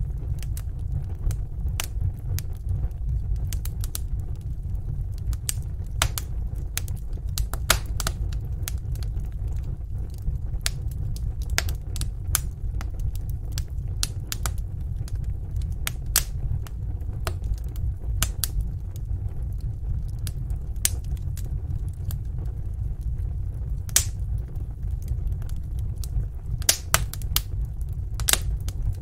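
Fire burning in a fireplace: a steady low rumble of flames with sharp crackles and pops at irregular intervals, a few of them louder near the end.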